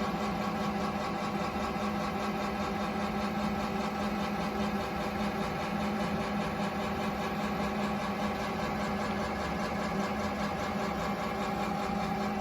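Haas ST-30SSY CNC lathe running, a steady mechanical hum with a whine over it that holds constant throughout.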